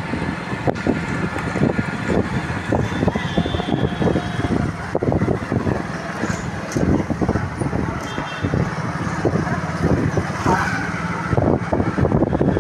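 Road noise from a moving vehicle on a city street: a steady engine and tyre rumble with frequent knocks and rattles. Short high tones sound briefly a few times.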